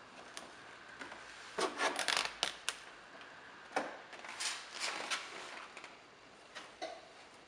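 Rubbing and scraping as a plastic side skirt is worked into place against the car's rocker and its double-sided tape liner is peeled off, in two irregular bursts a couple of seconds each, with a few sharp clicks.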